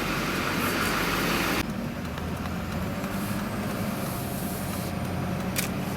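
Road traffic noise: a steady hiss that drops away abruptly about a second and a half in, leaving a low steady hum.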